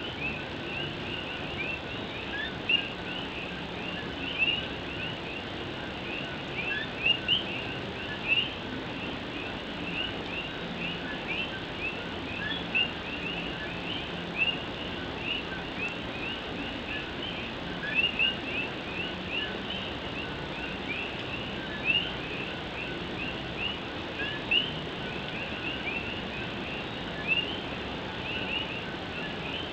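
A dense chorus of Puerto Rican coquí frogs: many overlapping short, high, rising chirps repeating without pause, with a few louder calls standing out every second or two. Under it, a steady hiss of rain falling on a tin roof.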